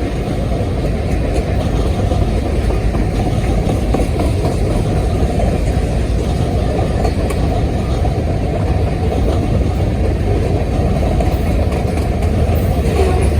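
Freight train rolling past, a steady low rumble that grows slightly heavier near the end.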